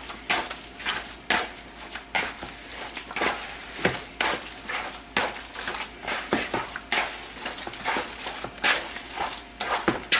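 Wet raw meatloaf mixture of ground beef, pork and veal with eggs and oats squelching as it is squeezed and kneaded by hand in a bowl, in irregular squishes a few times a second.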